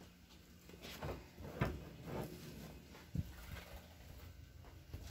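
A few soft, irregular knocks and rustles over a faint steady low hum.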